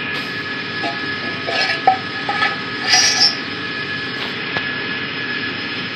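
Steady hum of workshop machinery, with a few light metallic clinks in the first half as the welded stainless-steel cleaner tank is handled.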